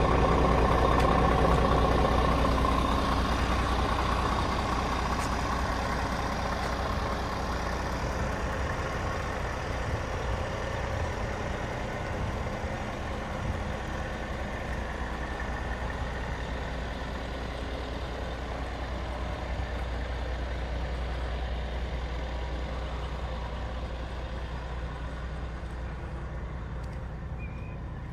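Scania G440 truck's 13-litre straight-six diesel running steadily, a deep continuous rumble that grows gradually fainter.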